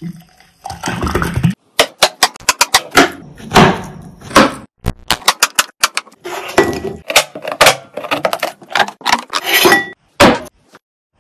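Kitchen utensils and food being handled at close range: a quick run of sharp taps, knocks and clinks mixed with short scraping and rustling noises. It stops abruptly near the end.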